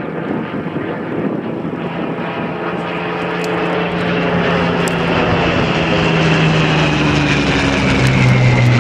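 Hawker Hurricane Mk XIIa's Packard Merlin V12 engine running in flight overhead, the drone growing steadily louder while its pitch slowly falls.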